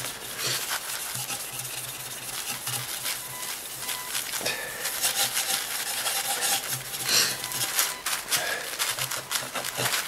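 A cloth pad scrubbing Silvo polish over the oxidised aluminium hood of a Kirby vacuum cleaner in quick, irregular strokes, working the corrosion off the metal.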